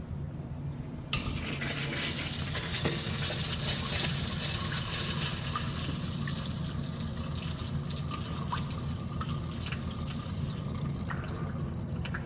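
Kohler Branham urinal flushing: about a second in, water suddenly rushes into the bowl with a hiss and keeps running, easing off near the end with a few drips. A steady low hum runs underneath.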